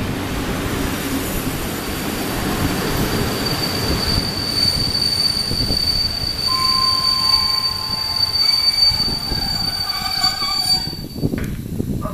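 PKP Intercity TLK passenger coaches rolling past the platform with a rumble from the running gear. About three seconds in, a high steady squeal from the wheels sets in. A second, lower squeal joins it for a couple of seconds midway, and both die away shortly before the end.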